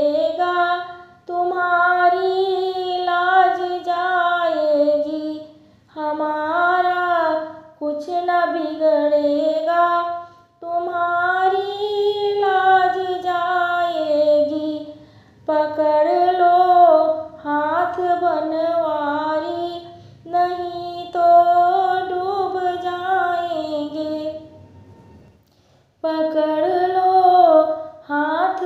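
A woman singing a Shri Krishna bhajan, a Hindi devotional song, in sustained melodic phrases a few seconds long with short breaths between them and a brief break near the end.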